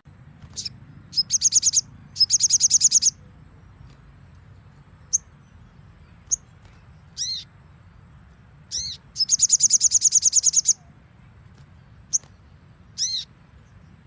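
Sogon (brown-throated sunbird) singing in high-pitched bursts: three fast rattling trills of evenly repeated notes, one of them about a second and a half long, broken by single sharp chips and a few short arched calls.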